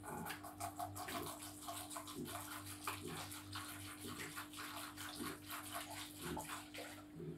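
Water being poured from a plastic bottle into a pet's water container, a steady run of gurgling and splashing that stops near the end.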